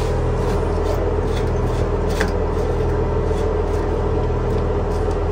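Steady mechanical hum in the room, with a few faint clicks as a hand turns the supply hose's coupling nut onto the toilet fill valve.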